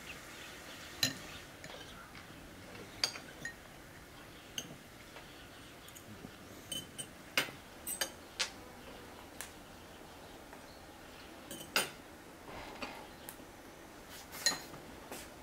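Teaspoons and forks clinking against glass tea glasses, a glass syrup bowl and plates: about a dozen short, sharp, irregular clinks.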